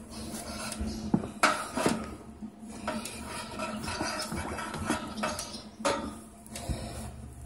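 A curved metal rod knocking and scraping against the steel pipe rails of a hay feeder, giving several sharp metallic clinks with a short ring after each.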